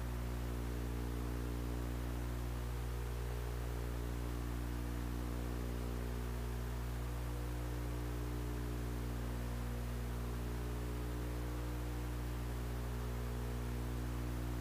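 Steady electrical mains hum with a row of overtones, unchanging throughout, over faint hiss.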